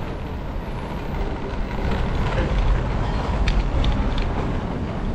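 City street ambience: a steady low rumble of traffic and engine noise, with a few short clicks about three and a half seconds in.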